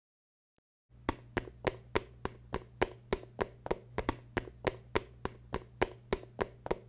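Evenly spaced sharp taps, about three or four a second, starting about a second in, over a faint low steady hum.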